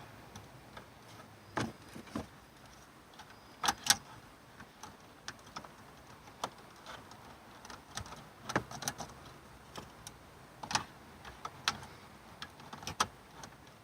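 Scattered clicks, taps and light knocks of hands working a double-DIN car stereo and its wiring into the dash. The loudest is a quick pair of knocks about four seconds in.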